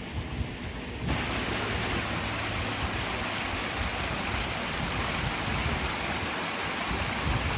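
Steady rushing noise of sea surf and wind at the shore, jumping louder about a second in and then holding even.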